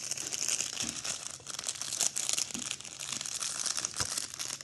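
Thin clear plastic bag crinkling continuously as it is handled, with a few light knocks.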